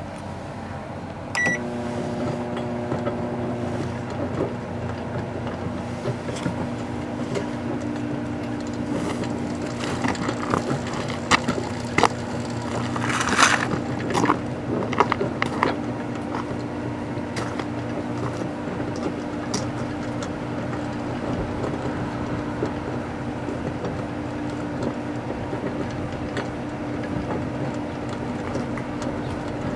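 Microwave oven's keypad beeps once, then the oven runs with a steady hum. A computer mouse heated inside it gives off scattered sharp snaps and a brief crackling burst midway, as it sparks.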